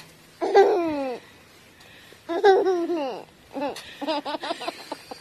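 A toddler laughing in three high-pitched bouts: a falling squeal, a second laugh, then a quick run of giggles near the end.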